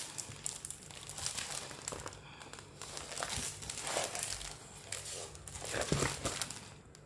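Pages of a scrapbooking paper pad being turned by hand, with paper rustling and a plastic sleeve crinkling in irregular bursts, the loudest about six seconds in.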